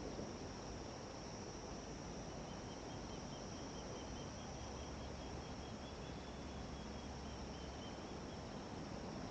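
Steady, high-pitched chorus of insects over a constant background hiss. A faint, rapid trill joins about two seconds in and stops near the end.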